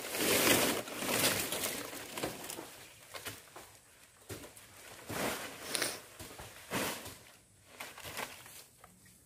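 Nipa palm fronds rustling and crackling in uneven bursts as they are handled and pulled during harvesting.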